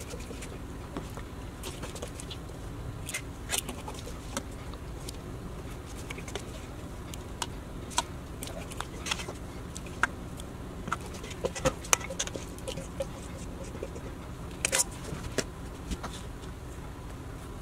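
Metal serving spoon clinking and scraping against a stainless steel mixing bowl as dressed salad is scooped out, with soft rustling of leaves. The clicks are sharp and irregular, over a steady low hiss.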